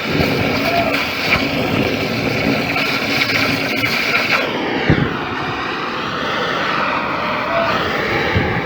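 Loud, steady machinery noise with a couple of held tones, changing abruptly in character about halfway through, followed by a single thump.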